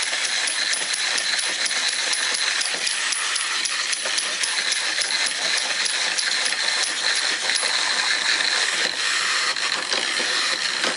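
Clockwork wind-up toys running: a steady, dense whirring rattle from their spring-driven mechanisms, with rapid fine clicking and metallic clinking.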